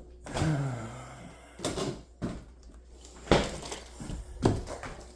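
Kitchen cupboard doors and drawers being handled: several separate knocks and bumps, the sharpest about three seconds in. A brief low whine comes about half a second in.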